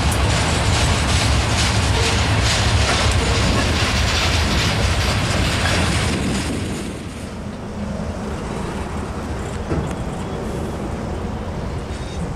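Freight train cars rolling past, their steel wheels clattering over the rails. About halfway through, the sound drops to a quieter, duller rumble.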